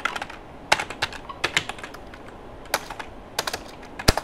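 Computer keyboard keystrokes clicking in short irregular clusters of a few keys, with brief pauses between them.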